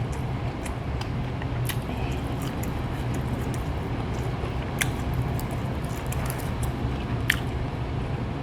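A person chewing food close to the microphone, a steady low muffled rumble broken by a few sharp mouth clicks.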